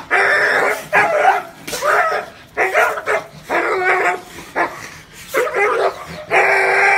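A dog barking over and over, about eight barks at an uneven pace, the first and last drawn out longer than the rest.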